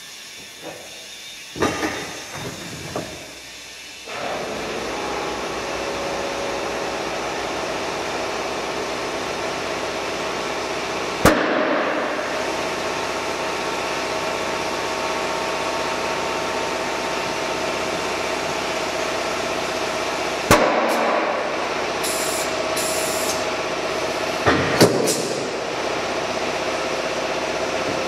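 Compressed air hissing steadily from a tyre inflator into a car tyre on a tyre-changing machine, starting a few seconds in after some knocks and clanks. Two sharp cracks cut through the hiss, about a third and about two-thirds of the way through.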